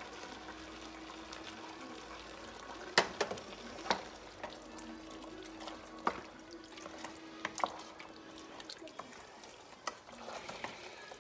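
A metal spoon stirring and scraping diced tomatoes in a stainless steel stockpot, with a few sharp clinks of the spoon against the pot and the tin can. A faint steady hum runs underneath and stops near the end.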